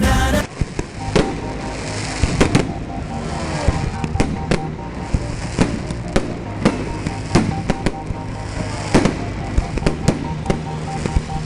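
Fireworks bursting: an irregular string of sharp bangs, several a second at times, over music with steady tones.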